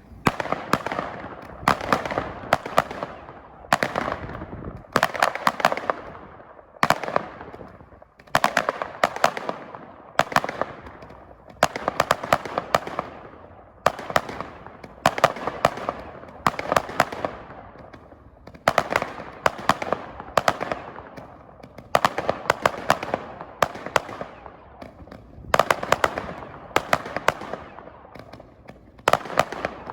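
Sunwing 78-shot Roman candle barrage firing loud salute reports in rapid volleys, several bangs a second, each followed by a short echo.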